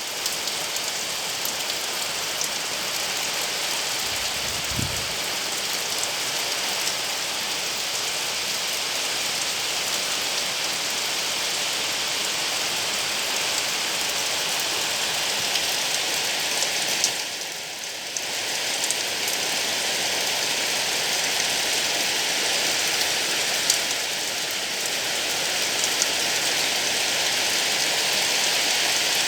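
Steady rain falling, with scattered drops ticking on surfaces. It dips briefly about seventeen seconds in.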